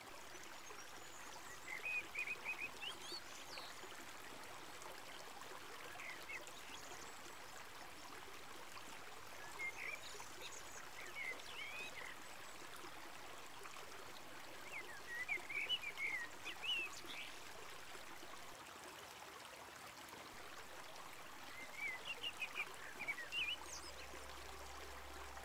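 River water flowing with a steady rushing murmur. Short groups of high chirping calls, likely a bird's, come about every five or six seconds.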